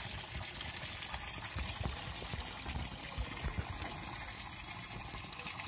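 A dense mass of small fish thrashing in shallow water in a concrete tank: a steady churning splash, full of small wet patters, like water on the boil.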